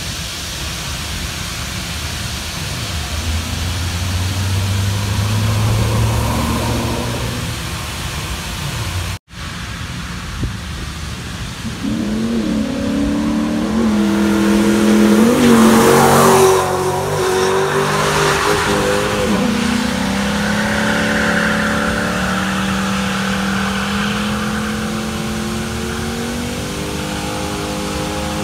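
Ford Mustang GT's V8 engine revving hard while drifting, its pitch rising and falling with the throttle, loudest as it passes about halfway through.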